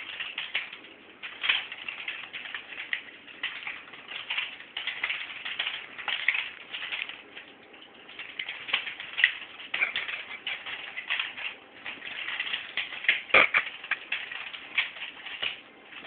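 Nunchucks whooshing through the air in rapid, repeated swings, several swishes a second, with a sharp knock of the sticks a little past thirteen seconds in.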